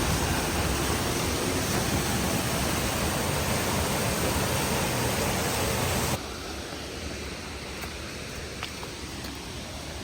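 Waterfall's water rushing steadily and loudly, then cutting suddenly to a quieter rush about six seconds in.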